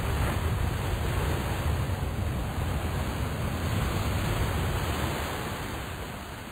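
Wind buffeting an outdoor microphone: a steady rushing noise with a deep, uneven rumble, fading out near the end.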